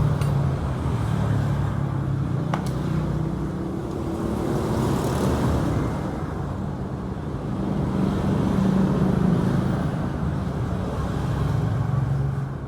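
Yamaha Exciter 135's single-cylinder four-stroke engine running, its speed rising and easing a little over the seconds. A sharp click sounds about two and a half seconds in.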